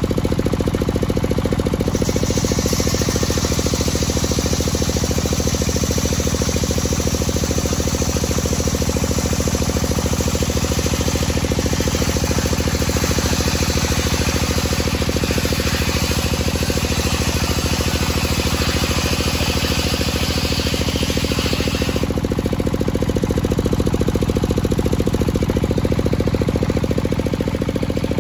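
Home-built table circular saw ripping a dry teak board lengthwise: a high hiss of the blade cutting through the wood from about two seconds in, stopping abruptly about twenty-two seconds in, then the blade spinning free. Under it, the engine driving the saw runs at a steady drone.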